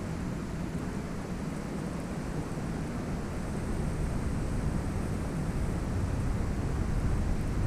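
Steady rushing noise of muddy water flowing through a drainage canal, with wind buffeting the microphone in a low, uneven rumble.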